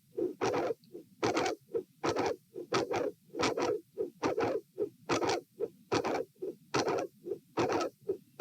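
Heartbeat heard through a stethoscope at the aortic listening position, regular at about 75 beats a minute, each beat a close group of two or three short sounds. The uploader describes a very loud mid-to-late systolic click with a murmur at the second heart sound, which she attributes to a dilated aortic root (aortic vascular click).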